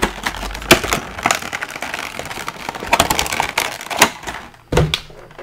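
Stiff clear plastic packaging tray of an action figure being handled and flexed: irregular crackling with sharp snaps of the plastic.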